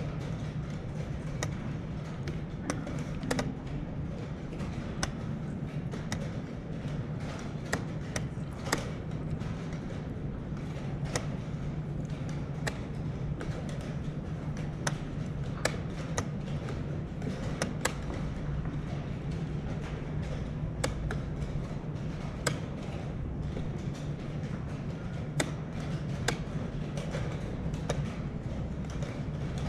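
Wooden chess pieces set down on the board and chess clock buttons pressed, irregular sharp taps and clicks about one or two a second: the rapid play of a blitz time scramble. A steady low hum lies under them.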